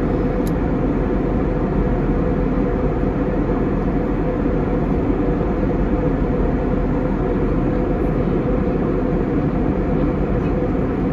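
Airbus A320 cabin noise in flight: the steady rush of airflow and engines heard from a window seat, with a constant low hum running through it.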